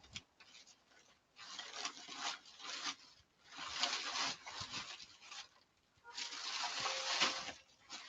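Three bouts of rough rubbing noise, each a second or two long.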